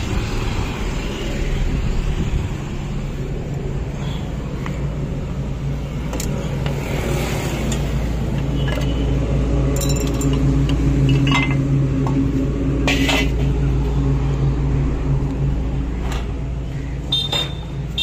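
A steady, low engine hum from a vehicle running close by, with scattered sharp metallic clicks and knocks from work on the motorcycle engine.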